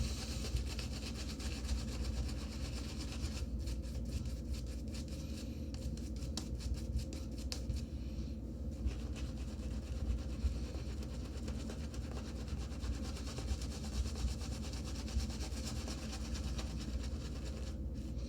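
Shaving brush being worked through shaving-soap lather with a touch of water added, a steady rubbing and scrubbing sound, with a run of quick, even strokes from about four to nine seconds in.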